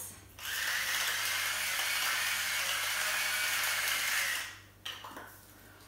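Battery-powered electric salt mill grinding salt: a steady whirring grind for about four seconds, then it stops and a faint click follows.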